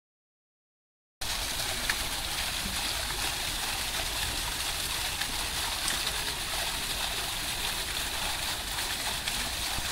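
Water from a small artificial rock waterfall fountain pouring and splashing steadily into its basin, starting suddenly about a second in after silence.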